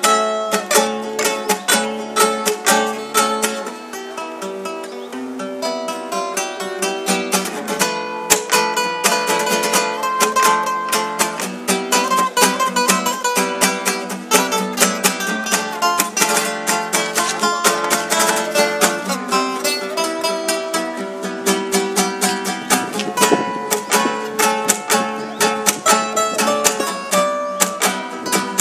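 Two acoustic guitars improvising together, a nylon-string classical guitar and a steel-string acoustic guitar, playing quick plucked note runs and chords.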